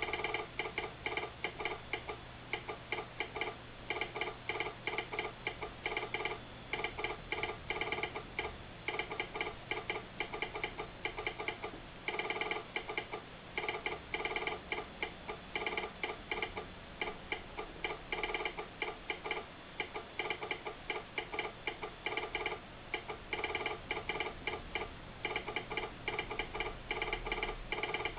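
Telegraph sounder clicking out Morse code in quick runs of clicks broken by short pauses, sending a railroad train order.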